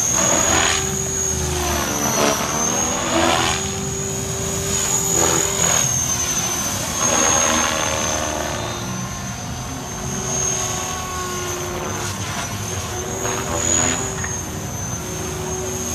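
Align T-Rex 500 EP electric RC helicopter flying 3D aerobatics: a steady high whine from its brushless motor and gears, with the rotor blades whooshing and swelling louder and softer as it swoops and turns.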